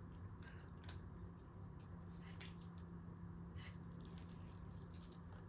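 Faint chewing of a mouthful of burger, with soft scattered mouth clicks over a steady low hum.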